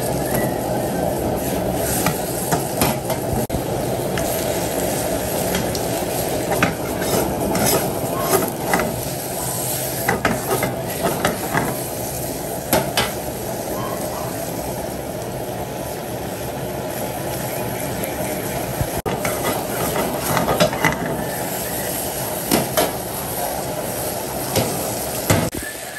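Meat sizzling as it is stir-fried in a pan, with a steady frying hiss and irregular clicks and scrapes of a utensil against the metal.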